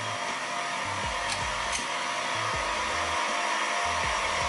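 Single-phase electric motor running steadily as a test load, a constant whirring noise.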